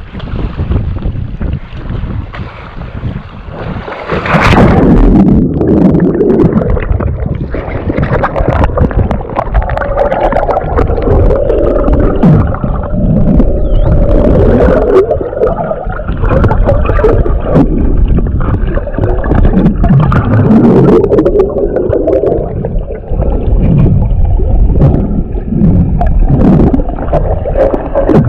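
Strong wind buffeting the microphone, with water rushing and splashing under a small board sailing fast in strong winds. It gets much louder about four seconds in and stays loud.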